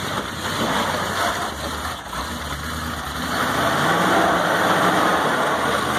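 Early Ford Bronco's engine running at low revs as the truck crawls over rocks, picking up a little after about three seconds.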